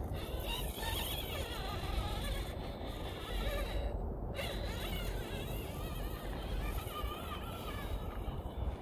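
Radio-controlled rock crawler's electric motor and gears whining as it creeps over granite rock, the whine wavering up and down in pitch with the throttle. A steady low rumble runs underneath.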